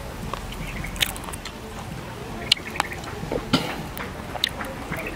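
Roasted crickets being pulled apart by hand: a handful of sharp, irregular crackles and snaps as the crisp bodies break.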